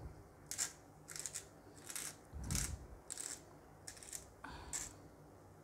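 Sea salt grinder being twisted by hand, crunching salt crystals in a series of short gritty bursts, about two a second.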